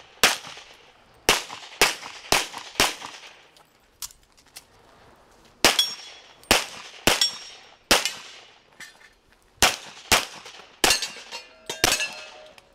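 Handgun shots fired during an IPSC stage run, about a dozen loud shots in singles and quick pairs, each with an echoing tail, and short pauses between strings as the shooter moves to new positions. A brief ringing tone sounds near the end.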